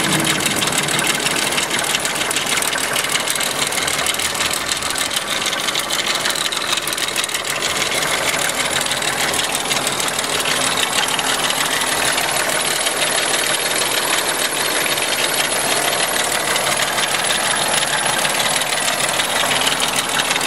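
A 2001 VW Jetta's VR6 engine running steadily with a fast metallic rattling clatter over it. The owner suspects worn timing chains but is not sure.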